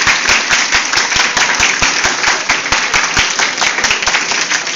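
Audience of students applauding, many hands clapping steadily.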